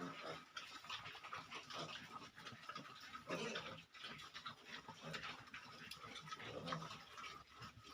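Pigs grunting and snuffling faintly, with many irregular small clicks, while they feed on dry pellet feed; a louder grunt comes about three seconds in.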